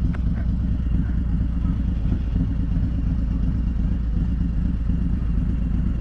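Harley-Davidson Milwaukee-Eight 114 V-twin of a 2021 Road King Special running steadily at low speed, a low, even engine note as heard inside the rider's helmet.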